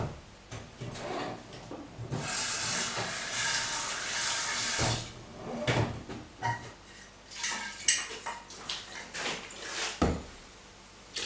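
Tap water running for about three seconds while a glass jar is rinsed at a sink, followed by scattered clinks and knocks of glassware being handled.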